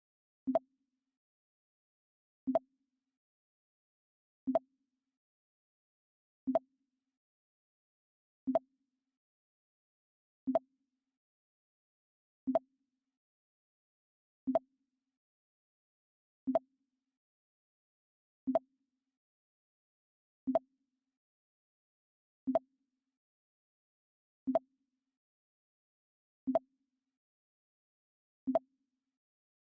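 Mac OS X 'Pong' alert sound, a short low pop played over and over, once every two seconds.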